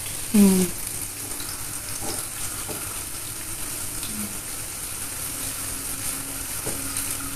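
Chopped shallots, garlic and chili sizzling steadily in hot oil in a frying pan while being stirred with a spatula: the aromatics are being sautéed until fragrant.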